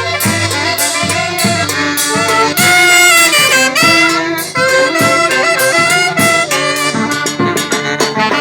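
Live banda orquesta music: a saxophone and brass section playing a melody over a steady drum beat.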